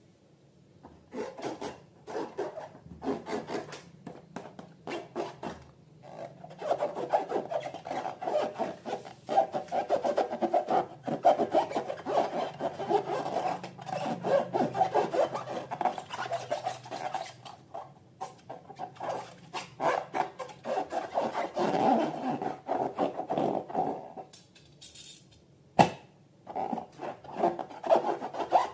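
Hands rubbing and working rubber balloons and slime in quick, irregular strokes. There is a short lull about three quarters through, followed by one sharp click.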